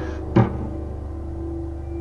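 Dark, sparse film-score music: a loud low held note stops at the start, a single percussive hit sounds about half a second in, then a quieter low drone with one held tone goes on.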